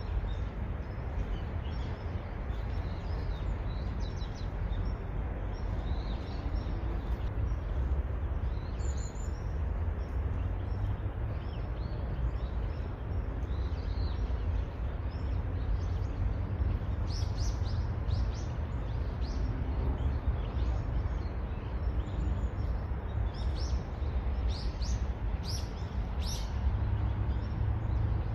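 Small birds chirping in short high calls, more of them in the second half, over a steady low rumble of background noise.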